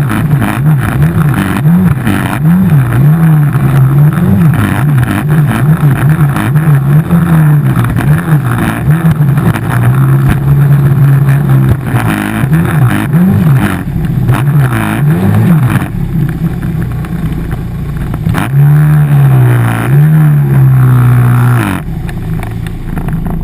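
A Hydrospace stand-up jetski's 110 hp engine running hard, its pitch rising and falling again and again as the throttle is opened and eased. About two-thirds through it slackens for a moment, then rises and holds before dropping off near the end.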